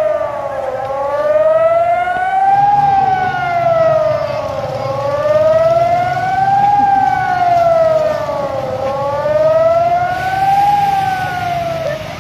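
Flood-warning siren wailing, its pitch rising and falling slowly in a cycle of about four seconds, three times over.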